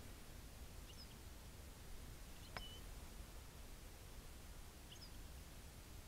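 Faint, short high calls from a small songbird, three of them a couple of seconds apart, with a sharp click about two and a half seconds in.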